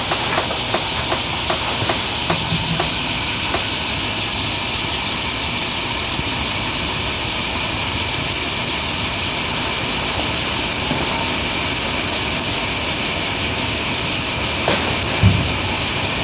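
RUCAS HD alcohol stove burning denatured alcohol with a steady hiss as its flame blooms up into tall jets, with light ticking in the first few seconds. A single dull thump near the end.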